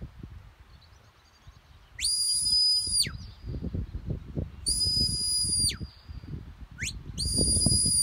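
Sheepdog handler's whistle commands to a working dog: three long, high, steady whistle notes, each ending in a sharp downward slide, about two, five and seven and a half seconds in, with a short rising blip just before the last. A low rumble runs beneath them.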